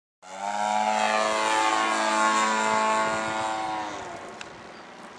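Engine and propeller of an Extreme Flight Extra radio-controlled aerobatic plane in flight: a steady pitched drone that starts suddenly, then fades and drops slightly in pitch about four seconds in.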